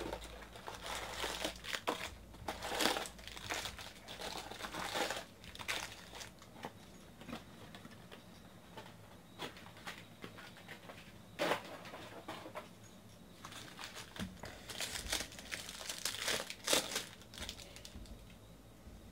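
Foil wrappers of baseball card packs crinkling as they are taken from a cardboard hobby box, stacked and torn open, in irregular bursts with a busy stretch near the start and another near the end.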